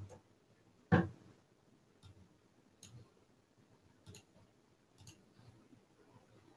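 Faint clicks of a computer mouse, a few at uneven gaps of about a second, as a screen share is set up. There is one louder short knock about a second in.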